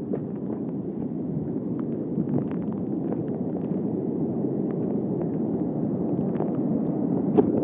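Hurricane-force storm wind buffeting the microphone in a steady low roar mixed with the surf, with faint scattered ticks of rain striking the camera.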